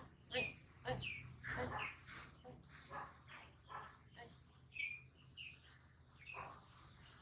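A string of short, high chirping calls, about one or two a second, thinning out near the end.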